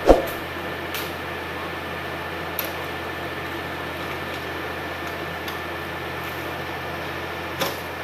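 Heavy-machinery diesel engine running steadily while a Hitachi hydraulic excavator's bucket works under a log and lifts it. A sharp, loud knock comes right at the start, with a smaller knock near the end and a few faint clicks between.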